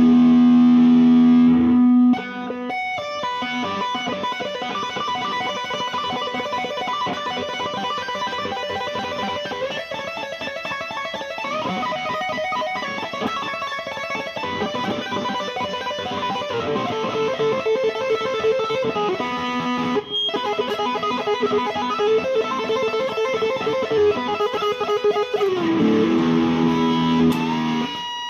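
IYV ILP 400 electric guitar played through a Peavey Bandit TransTube amp with the pickup selector in the middle position. A held note rings for about two seconds, then the guitar plays quick single-note lead runs with some held notes, and pitch slides near the end.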